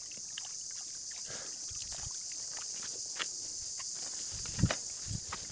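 Insect chorus making a steady high buzz, with scattered light clicks and knocks, the loudest a dull thump about four and a half seconds in.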